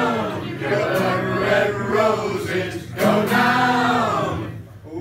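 A sea shanty sung by a group of voices, men's voices most prominent, with a short break between lines near the end.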